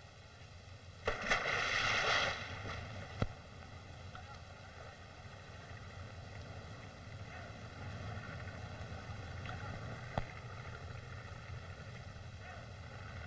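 Steady low hum and hiss of an old film soundtrack. About a second in comes a loud noisy burst lasting about a second, and later there are a couple of single sharp clicks.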